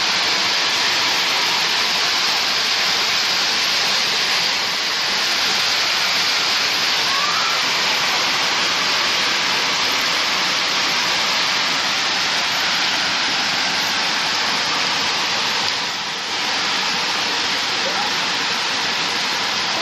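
Steady rain falling, an even hiss that dips briefly about sixteen seconds in.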